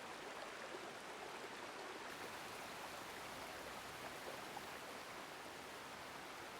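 Steady rain falling in a downpour, a faint even hiss with no engine or music heard.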